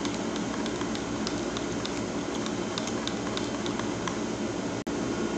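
Spoon stirring a drink in a stainless-steel travel mug, clinking lightly against the inside in small irregular ticks, a few each second, over a steady background hiss.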